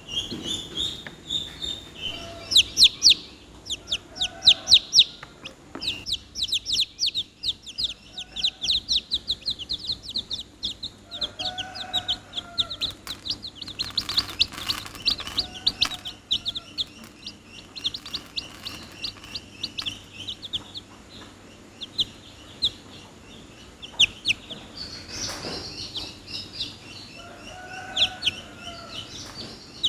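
Domestic chicks peeping: rapid, high-pitched chirps in dense runs, several birds calling over one another, with lower clucking calls every few seconds.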